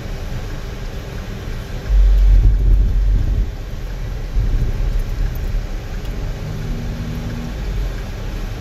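Inside a car's cabin while driving slowly: a steady low engine and road rumble, swelling louder for a second or so about two seconds in.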